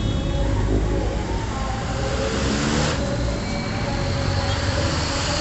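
City street traffic: a steady low rumble of vehicle engines running on the road.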